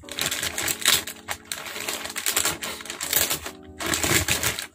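Clear plastic bag crinkling and crackling in the hands as it is pulled open around a new motorcycle brake disc, with background music underneath.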